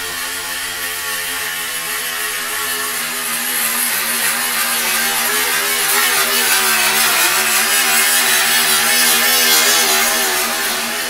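Handheld grinder running against a vehicle's steel body panel, getting louder through the middle and latter part, over a steady machine hum.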